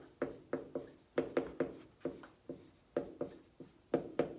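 Dry-erase marker writing letters on a whiteboard: a quick, irregular run of short strokes, about three to four a second.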